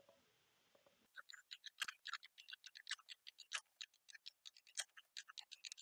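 Computer mouse clicking rapidly and irregularly, several clicks a second, starting about a second in: many items being selected one by one.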